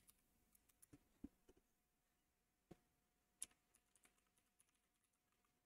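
A few faint computer keyboard key presses, scattered over near silence.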